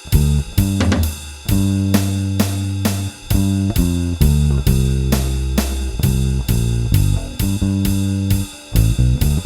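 Electric bass guitar with a Seymour Duncan Designed pickup through a Studio Bass compressor, playing a slow blues bass line of held low notes. Drums keep a steady beat underneath, with cymbal strikes about three times a second.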